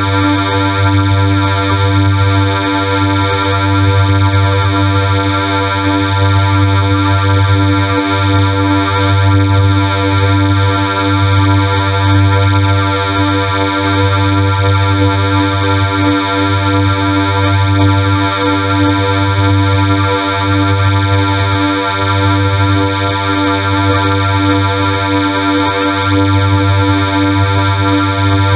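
Harsh, loud electronic buzzing drone: a steady synthesized tone with many overtones above a deep hum, wavering only slightly in level.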